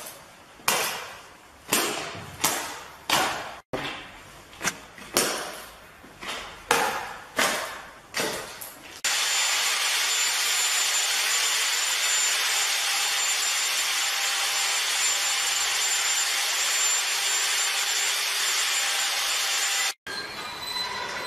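Plastic tile-levelling clips being snapped off between porcelain floor tiles by kicks of a work boot: a run of sharp snapping knocks, about one every two-thirds of a second, for the first nine seconds. Then a steady, even hiss takes over for about eleven seconds and cuts off suddenly.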